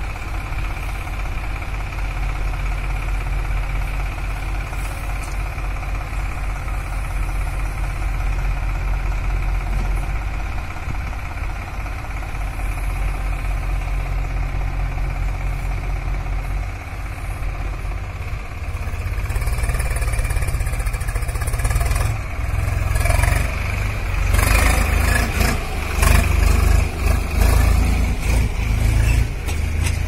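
Diesel engines of a JCB backhoe loader and a tractor running steadily while the backhoe digs soil and loads it into the tractor's trailer. The sound grows louder about two-thirds of the way through, with a run of knocks and rattles near the end.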